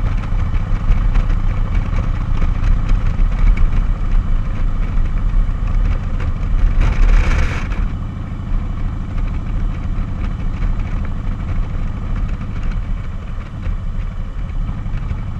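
Cruiser motorcycle engine running steadily at road speed with a low rumble, heard from the rider's seat. About seven seconds in there is a brief rush of hiss, and after that the engine sound eases off slightly.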